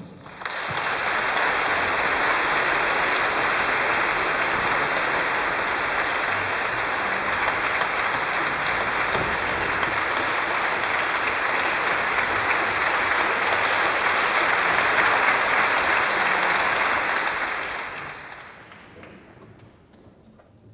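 Concert audience applauding, steady for about seventeen seconds, then dying away near the end.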